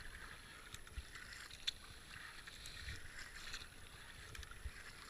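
Kayak paddle strokes on calm river water: the double-bladed paddle dipping and pulling out with splashing and dripping, in a steady rhythm of about one stroke a second, with a few light knocks.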